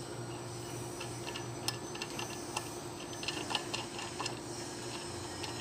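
Faint, irregular light metallic ticks as a screw is turned by hand into a freshly tapped 8 mm × 1.25 thread in an aluminium engine cover, running in smoothly, over a low steady hum.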